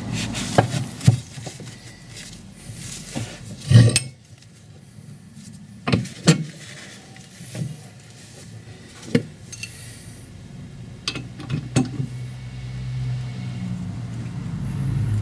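Scattered metallic clinks and knocks of hand tools working on an MGA rear hub as a longer wheel stud is drawn the last half millimetre into place, the loudest knock about four seconds in. A low rumble builds over the last few seconds.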